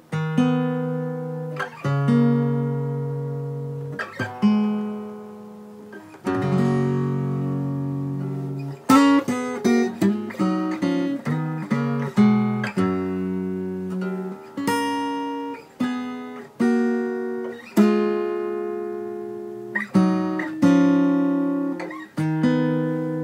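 Acoustic guitar in standard tuning playing two-note harmony shapes on a pair of strings in G, each one struck and left to ring. A quicker run of notes starts about nine seconds in, then it slows back to held shapes.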